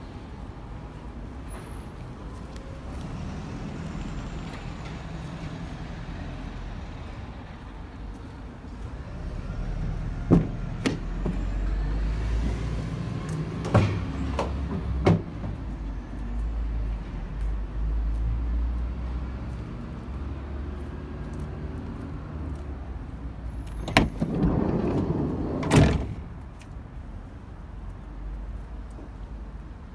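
Nissan NV200 van's doors being worked: a few sharp latch clunks from the rear doors between about ten and fifteen seconds in, then the side sliding door running along its track and clunking open. A low rumble underlies it all.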